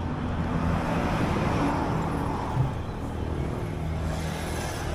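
Road traffic: a motor vehicle passes by, its noise swelling about a second in and fading away, over a steady low engine hum.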